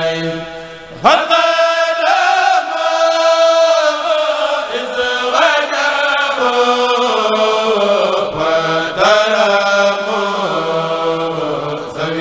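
A Mouride kourel of male voices chanting a khassida in unison. About a second in, after a brief drop, the voices come back in strongly with a steep upward swoop in pitch.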